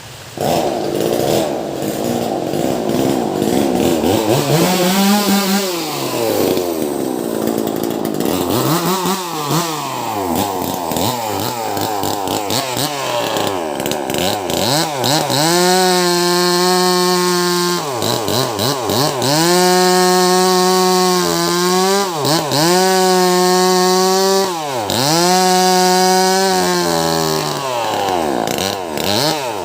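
Wagner 580 two-stroke chainsaw with a 16-inch bar, starting loud about a third of a second in and revving up and down, then held at high revs while cutting through a large log, with brief drops in pitch every couple of seconds.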